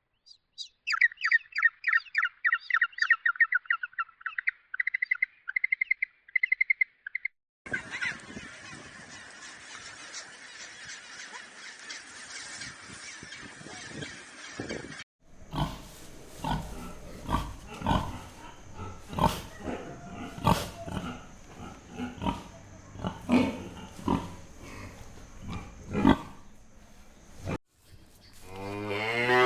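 Animal calls in three parts: a fast run of high chirps, then a steady hiss, then a string of short low calls and knocks about once a second.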